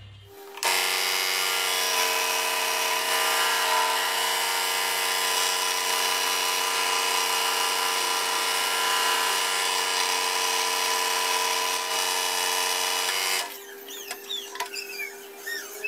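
A power tool motor running steadily at one unchanging pitch for about thirteen seconds, then shutting off near the end, after which only faint clicks and short squeaks remain.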